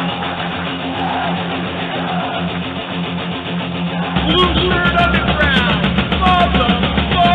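Rock music led by guitar. About four seconds in it gets heavier, with a stronger bass line, held guitar notes and sliding guitar lines.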